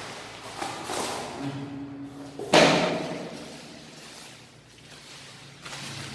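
Parcel packaging being handled: a few light knocks, then one loud thump about two and a half seconds in.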